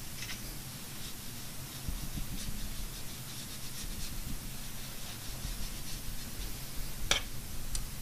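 Paintbrush rubbing and scratching across textured watercolor paper as wet watercolor paint is brushed on. A single sharp click comes about seven seconds in.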